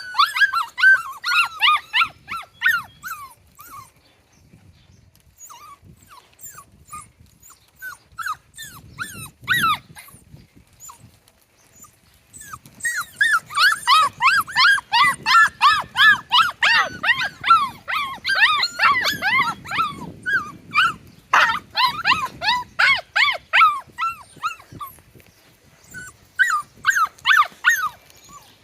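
Mini goldendoodle puppies at play in a tug-of-war, giving rapid, high-pitched yips and whines in clusters. They are busy for the first few seconds, sparse for a while, then keep up a long, dense stretch from about halfway through, with a short flurry again near the end.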